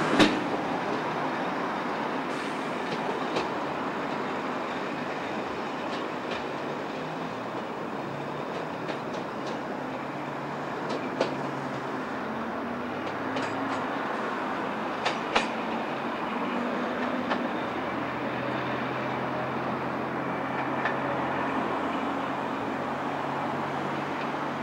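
British Rail Class 121 single-car diesel railcar pulling away, its diesel engines running steadily, with scattered clicks of the wheels over rail joints.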